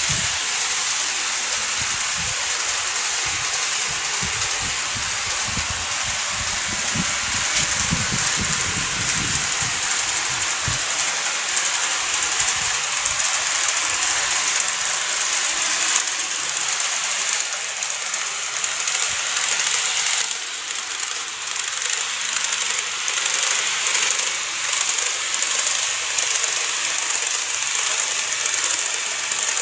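N-gauge KATO model trains running on layout track: a steady high hiss of wheels on rails and small motors, with soft low knocks through the first ten seconds or so.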